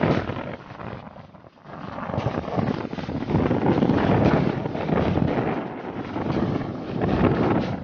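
Wind gusting against the microphone over the rush of a wooden fishing boat under way at sea. It dies down about a second in, then builds up again and stays strong.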